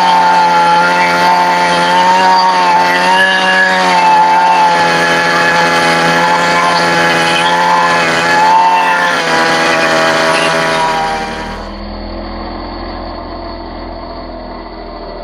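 Petrol brush cutter engine running hard while its tiller attachment churns soil, the engine note rising and falling as it works. About eleven seconds in it drops off suddenly to a much fainter, duller running sound.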